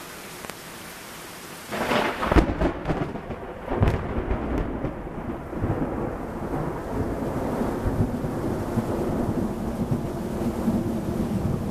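Steady heavy rain, then about two seconds in a thunderclap: a sudden crackling crack with several sharp snaps over the next two seconds, followed by a long, low rumble that keeps rolling under the rain.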